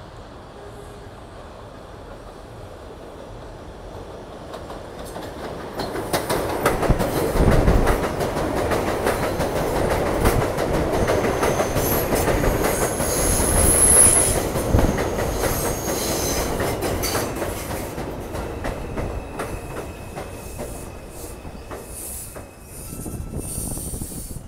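R142 subway train running into an elevated station: a rumble that builds over several seconds into rapid clicking of wheels over rail joints, with a high squeal in the middle. As it slows, the noise fades and a steady high whine comes in near the end.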